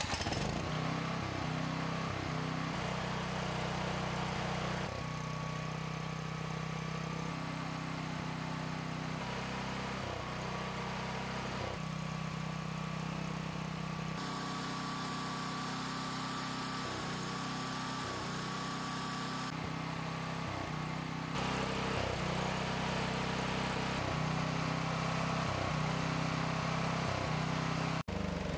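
Ryobi EFI generator's 420cc single-cylinder engine running steadily at constant speed, with a thin high whine above the engine note and a few abrupt changes in tone.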